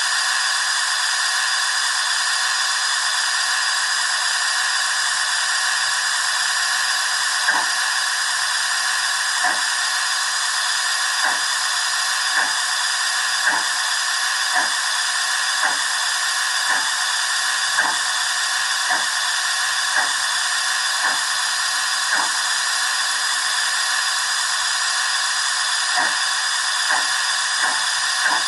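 Dapol Terrier model steam locomotive's Howes sound decoder playing steam sounds through its small speaker: a steady steam hiss, with exhaust chuffs starting about a quarter of the way in. The chuffs come about one a second at first and quicken near the end as the loco gets under way.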